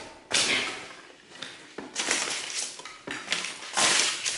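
Cardboard box of a Dremel Fortiflex handled and turned in the hands: a few scraping, rustling knocks with quiet gaps, the loudest near the end.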